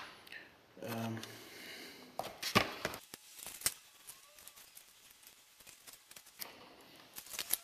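Light knocks, scrapes and clicks as rigid cement-coated styrofoam rock pieces are picked up and handled, the sharpest knock about two and a half seconds in. A brief voice sound about a second in.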